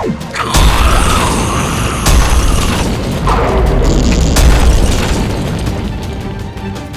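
A deep booming explosion-like sound effect hits about half a second in and rumbles on heavily, with further sharp hits around two and four and a half seconds. Background music plays underneath.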